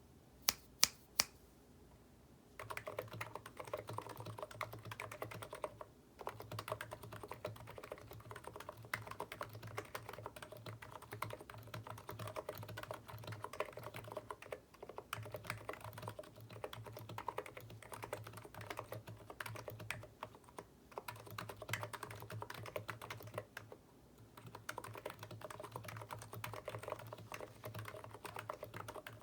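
Typing on a Niz Plum Micro 82 keyboard with 45 g electrocapacitive switches, blank PBT keycaps on a steel plate in a plastic case. It starts with three sharp, louder clicks in the first second or so, then runs into steady, fast keystroke clatter broken by a few short pauses.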